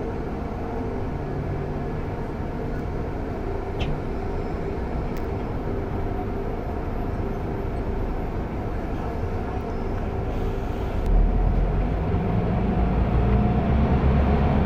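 Rear-mounted engine of a Mercedes-Benz OC500LE city bus running, heard from the back of the cabin as a steady rumble with a low hum. About eleven seconds in, the low rumble steps up and grows louder as the engine works harder.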